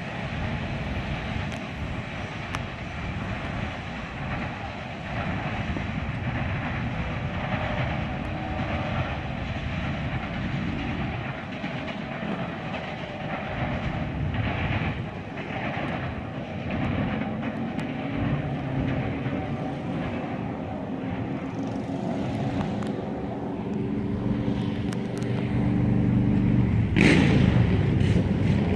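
Freight train cars rolling away on the rails with a steady rumble of wheels on track. In the second half a steady engine drone grows louder, and a brief loud burst comes near the end.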